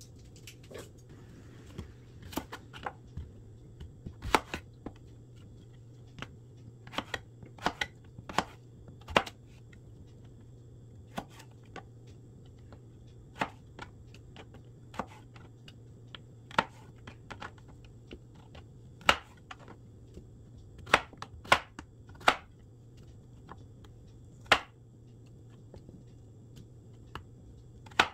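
Chef's knife cutting zucchini on a plastic cutting board: irregular knocks of the blade hitting the board, with pauses between cuts and a cluster of harder chops a little after twenty seconds in.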